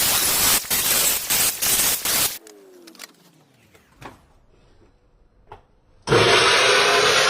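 A power tool running loud, then released and winding down with a falling whine, followed by a few seconds of quiet with a couple of light clicks; about six seconds in it starts up again abruptly.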